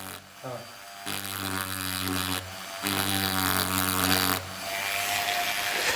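Small electric drill (rotary tool) running in spurts with a steady motor whine, cutting off briefly twice, with a grinding hiss as the bit cuts crack-like grooves into cast gypsum.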